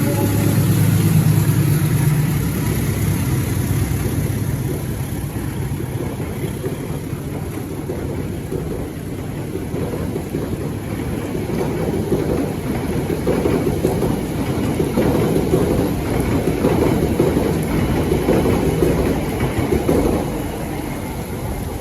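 Diesel locomotive engine drone, fading in the first few seconds as the train goes by, then the train's cars rumbling past until the sound eases near the end, with a steady hiss of rain throughout.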